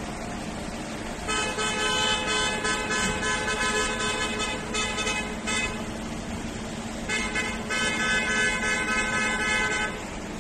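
Vehicle horns honking in two long blasts, the first about four seconds long with a short break near its end, the second about three seconds, over a steady engine hum.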